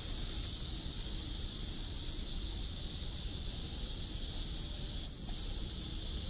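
Steady high-pitched drone of an insect chorus in the trees, unbroken throughout, over a low rumble.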